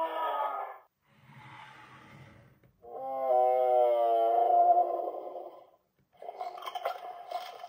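Electronic dinosaur toy playing recorded roar sound effects. A roar fades out just under a second in and is followed by a faint low growl. A long roar wavers in pitch, and a rapid chattering screech comes near the end.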